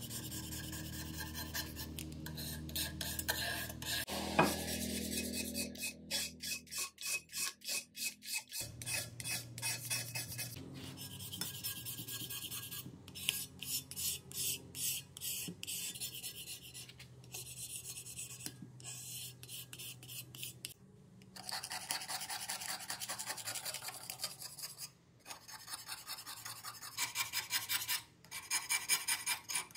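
Hand-held razor-blade scraper rasping in quick repeated strokes, with short pauses between runs, as it scrapes old finish off a worn wooden plane body. Near the end it scrapes a small rusty metal plane part.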